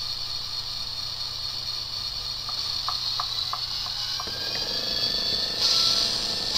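Diesel engine sounds from an N-scale locomotive's MRC sound decoder, played through its small built-in speaker, a decoder the owner finds too quiet even at full volume. A steady hissy engine sound, a few short ticks around the middle, then the engine sound rising in pitch and growing louder as the locomotive pulls away.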